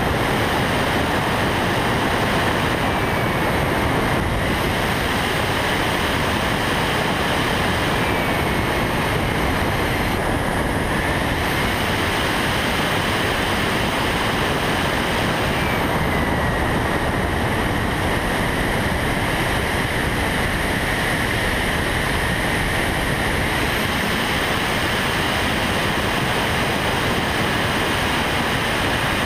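Steady rushing wind noise from an RC airplane in flight, heard through a camera mounted on board, with a thin high motor whine that glides up and down in pitch several times as the throttle changes.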